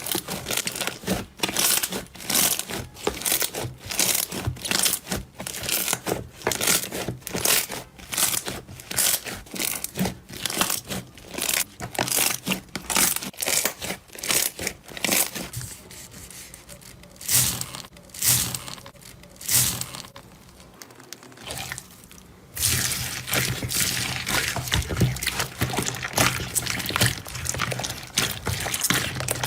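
Slime being handled, giving sharp crackling pops about twice a second; about two-thirds through it changes to a denser, continuous crackle.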